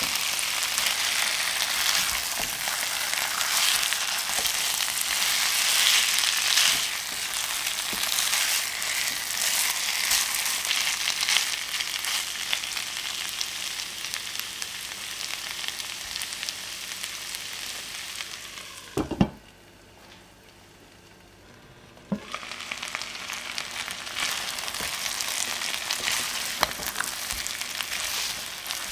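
Chicken drumsticks sizzling as they fry in oil and butter in a nonstick pan, with tongs and a silicone spatula turning them. About two-thirds of the way through there is a sharp knock, the sizzling drops away for a few seconds, and then it resumes.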